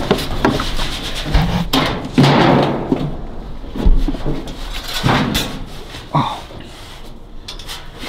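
People climbing through a gap in plywood boarding over metal framing: irregular knocks, scrapes and clothing rustle, with a few sharp bangs in the first half.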